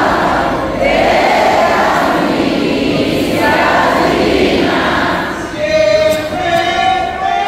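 A large crowd singing and chanting together, loud and dense. About five and a half seconds in, an instrument melody starts in clear held notes over the voices.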